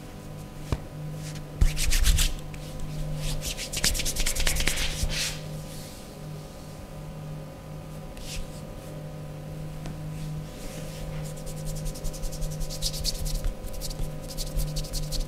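Hands rubbing over skin in massage strokes: a few separate passes early on, then quick, rhythmic back-and-forth rubbing through the second half.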